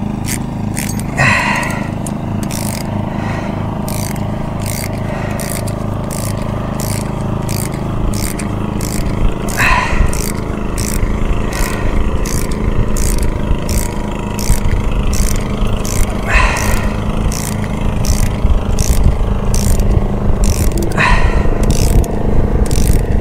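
A machine running steadily with a regular clicking about three times a second and a short chirp four times; it grows louder about eight seconds in.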